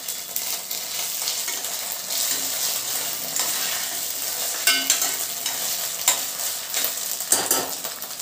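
Chopped onions, whole spices and ginger-garlic paste sizzling in hot oil in a steel pressure cooker while being stirred with a steel spoon, which scrapes and knocks against the pot a few times.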